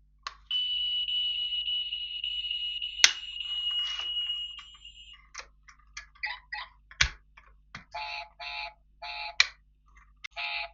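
A small toy car's electric motor whirring steadily with a high whine for about five seconds, with a sharp click partway through. Then a string of short pitched chirps and clicks.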